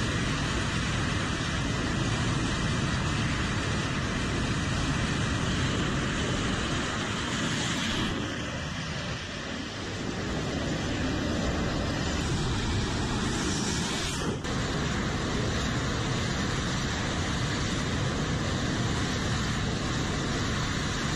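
F/A-18 Super Hornet jet engines running at full power for catapult launches from an aircraft carrier deck: a steady, loud jet noise that eases slightly about nine seconds in.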